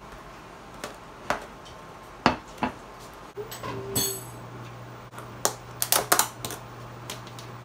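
Takeout containers and a ceramic dish being handled on a plastic-covered table: scattered clicks and knocks of plastic lids and dishes being set down and opened, with one ringing clink about four seconds in.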